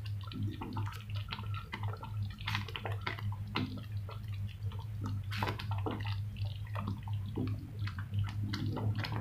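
Thick spinach (palak paneer) gravy bubbling in a pan as it simmers, with irregular wet pops and plops, over a steady low hum.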